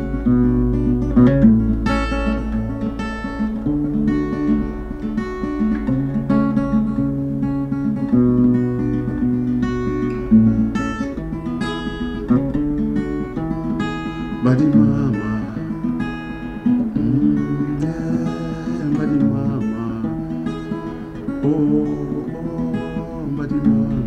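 Acoustic guitar playing an instrumental passage of a traditional Congolese song: a stepping bass line of picked notes under plucked chords, at a steady pace.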